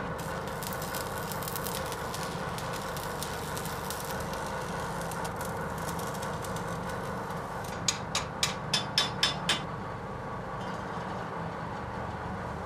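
Metalworking in a blacksmith's workshop: a steady machine hum with irregular crackling through the first half. About eight seconds in, seven sharp metallic taps come in quick succession, about five a second.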